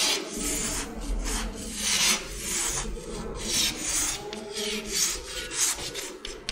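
Chalk scraping on a blackboard in a run of short strokes, about two or three a second, as lines are drawn.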